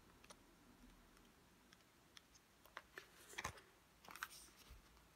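Near silence with a few faint clicks and light taps, mostly in the second half.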